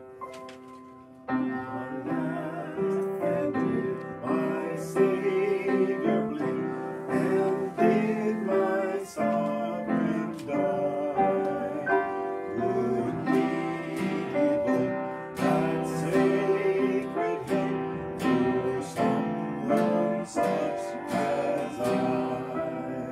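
Upright piano and acoustic guitar playing a worship song together, with a voice singing along. The music comes in after a short pause about a second in.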